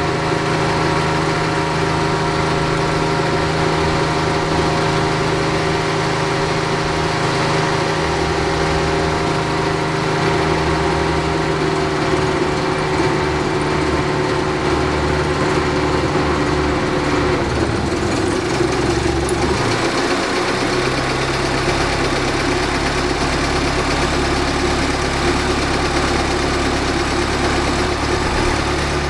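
Saab 90's four-cylinder engine idling steadily on its Stromberg carburettor while the mixture is set for an emissions test, running on full rich. About two-thirds of the way through, the engine note shifts and dips briefly, then settles back to a steady idle.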